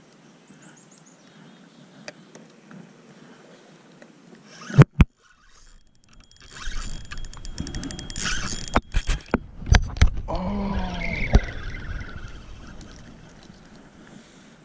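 A bass hooked and lost on a log while fishing from a boat: two sharp knocks about five seconds in, then several seconds of loud scuffling and handling noise broken by more knocks, and a short groan from the angler near the end as the fish gets away.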